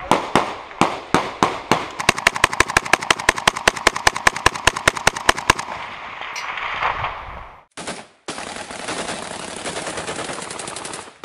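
Close assault-rifle fire: several single shots, then about two seconds in a long burst of automatic fire at about eight rounds a second, lasting over three seconds. After a brief break near the end, a steady hiss.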